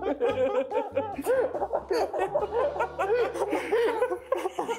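Several young men laughing and chuckling together, in short repeated bursts of laughter.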